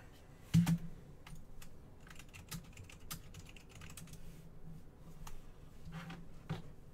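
Typing on a computer keyboard: a run of light, irregular key clicks, with one louder knock about half a second in.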